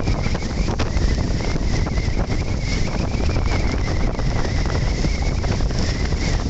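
Strong wind buffeting a phone's microphone on the deck of a small passenger ferry under way, as a steady loud rumble with crackling gusts. A faint steady high whine runs beneath it.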